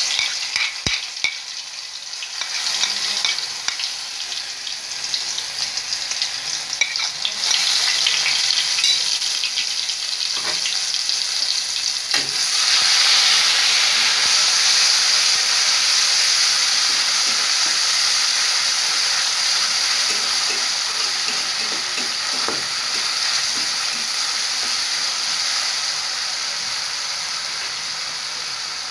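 Spice paste sizzling as it fries in hot oil in a metal karahi, stirred with a spoon, with a few spoon clicks and scrapes at the start. The sizzling swells about twelve seconds in, then holds steady and slowly eases.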